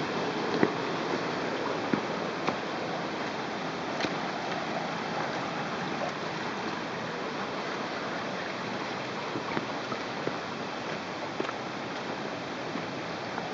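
Shallow river water running and trickling over a rocky bed, a steady rushing sound, with a few sharp ticks scattered through it.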